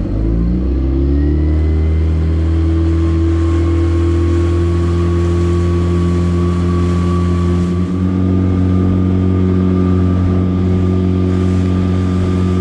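Outboard motor on a small fishing boat opening up: its pitch rises over the first second or so, then it runs steadily at speed, with water rushing past the hull.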